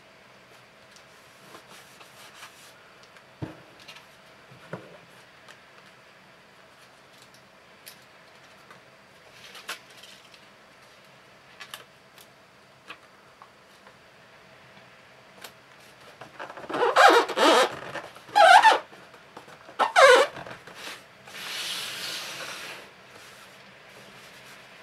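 Cardboard shipping box dragged and turned on a tabletop, giving three short squeaky scrapes close together about two-thirds of the way in, then a longer rub. Before that there are faint rustles and clicks of paper sticker backings being handled.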